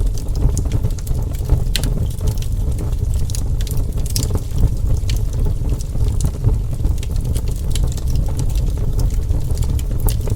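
Wood fire burning with a steady low rumble of flames and frequent irregular sharp crackles and pops.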